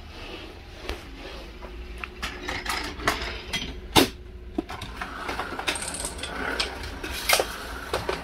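Homemade Rube Goldberg machine of toy cars, tracks and dominoes running: a string of irregular clicks, clatters and knocks of small plastic and wooden parts, with the loudest sharp knock about four seconds in.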